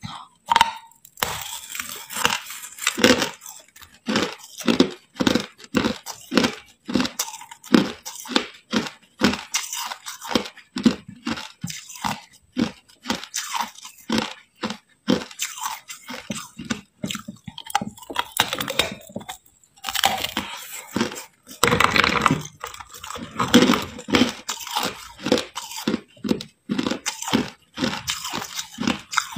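Hard ice being bitten and chewed close to the microphone: a continuous run of sharp crunches and cracks, about two or three a second, with a denser, louder stretch of crunching about two-thirds of the way through.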